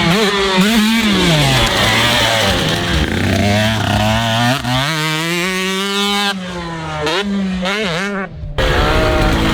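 Husqvarna two-stroke dirt bike engine being ridden hard, its pitch rising and falling again and again as the throttle is worked and gears change. The revs drop briefly near the end before picking up again.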